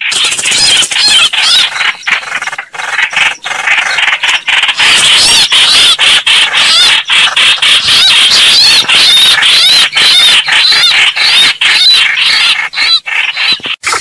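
Recorded bird calls, which the title gives as a bìm bịp (greater coucal) call file: loud, rapid, wavering squeals, broken by many short gaps.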